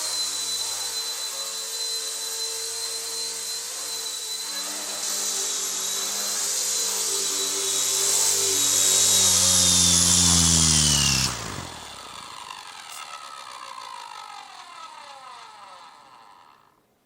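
Electric motors and rotor blades of an RC Era C138 Bell 206 micro RC helicopter running with a steady high whine, growing louder; about eleven seconds in the pitch falls and the motors cut, and the rotor winds down, falling in pitch until it stops just before the end.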